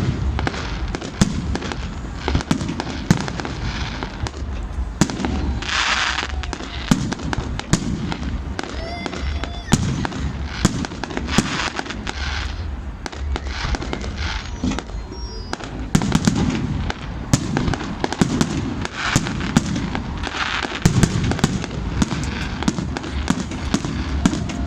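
New Year fireworks going off one after another: many sharp bangs and pops, with a few stretches of hissing crackle.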